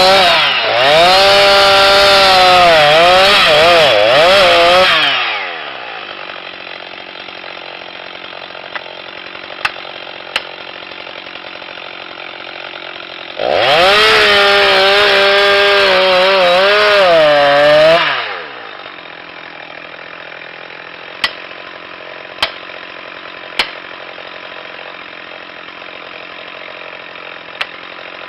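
Chainsaw engine at high revs cutting, its pitch wavering under load, in two spells of about five seconds each, dropping back to a low idle in between. A few sharp ticks sound during the idle stretches.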